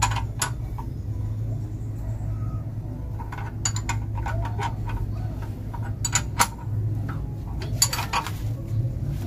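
Scattered light metallic clicks and clinks, some in quick little clusters, over a steady low hum: metal parts and tools knocking together during hands-on engine work.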